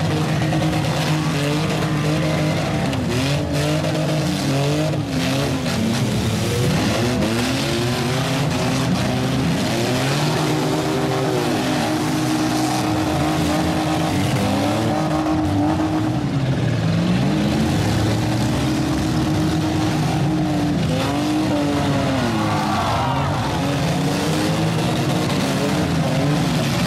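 Several demolition-derby trucks and vans revving their engines at once, the engine pitches rising and falling over one another as the vehicles accelerate and back off, with a few knocks of impacts.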